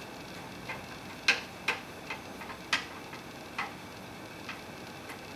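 About ten sharp, irregular clicks of a Phillips screwdriver working a metal set screw into the joint of a wooden crib frame, the loudest a little over a second in and near three seconds.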